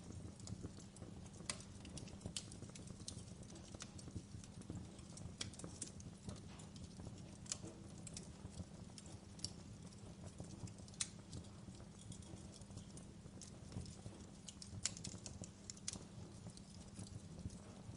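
Wood fire crackling in a fireplace: irregular sharp pops and snaps, a few a second, over a steady low rumble of burning.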